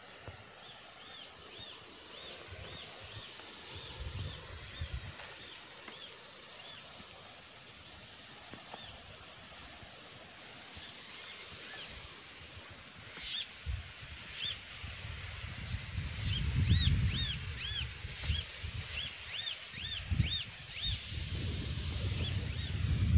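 A small bird calling over and over in short, high chirps that rise and fall, about two a second, with a lull around the middle. In the second half a low rumble on the microphone grows louder under the chirps.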